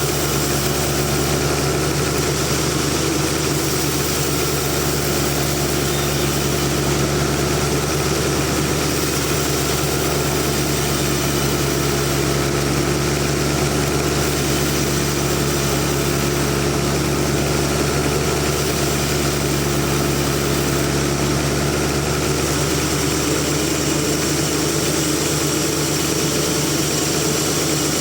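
Large sawmill machine running steadily with a constant engine-like hum that does not rise or fall.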